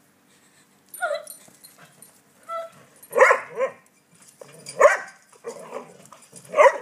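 A dog barking and yipping again and again: a few softer yips first, then louder barks about three seconds in, near five seconds and just before the end.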